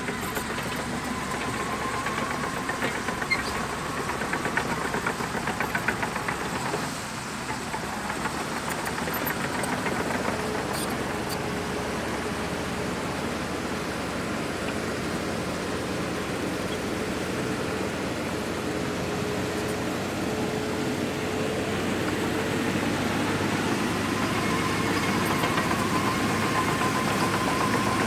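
Shantui DH17C2 crawler bulldozer's diesel engine running steadily at work, with bouts of metallic clattering in the first ten seconds or so, and the sound building slightly toward the end.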